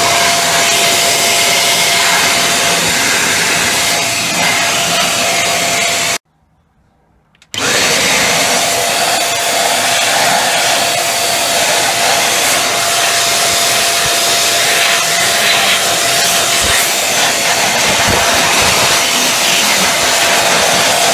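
XPOWER Airrow Pro A2 electric computer duster blower running, blasting air into a PC case's vents and fans: a loud, steady rush of air with a steady whine from its motor. It cuts out about six seconds in and starts again about a second and a half later.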